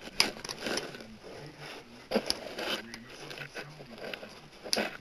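A plastic Blu-ray case being handled, with fingers pressing on a disc in it: a few sharp plastic clicks, about four in all, among scraping and rubbing.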